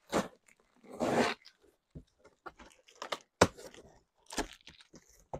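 A cardboard shipping box being opened by hand: packing tape tearing and cardboard crunching in short, irregular bursts, with a sharp knock about three and a half seconds in.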